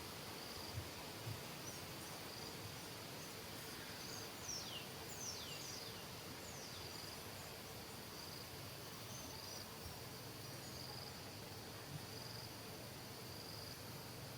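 Insects chirping in a steady, pulsing high trill, with a few quick, high, falling calls about four to six seconds in.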